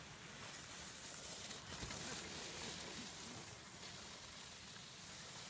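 Faint, steady outdoor hiss of wind on the phone's microphone on an open ski slope, with faint distant voices.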